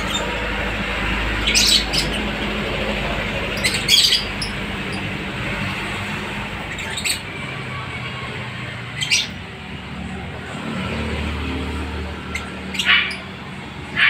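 Caged lovebirds giving short, sharp, shrill calls every couple of seconds, over a steady low background hum.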